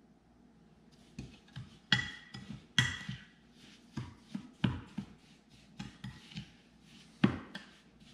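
A metal spoon stirs a sandy rosemary body scrub in a small glass bowl, with irregular clinks and scrapes against the glass. The sharpest clinks ring briefly. It begins about a second in.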